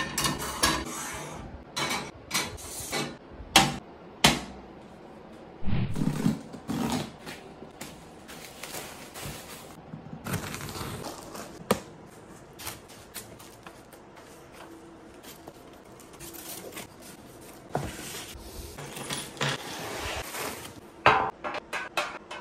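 Handling sounds from unpacking and assembling a plastic dish drainer cabinet: plates clacking into its wire rack, cardboard flaps rustling as the box is opened, and plastic parts knocked and pressed together. It comes as a string of separate knocks and clacks with rustling between them.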